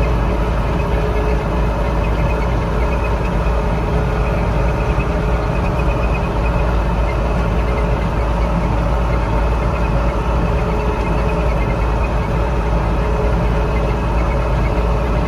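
A large engine running steadily, a constant low drone with no change in speed.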